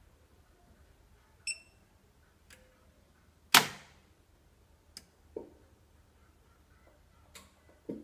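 A handful of separate clicks and knocks at uneven intervals over near quiet. The loudest is a sharp knock about halfway through. An earlier click has a brief high metallic ring.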